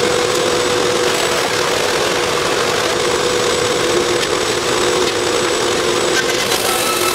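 Steady drone of shop machinery running, with a constant hum over an even wash of noise.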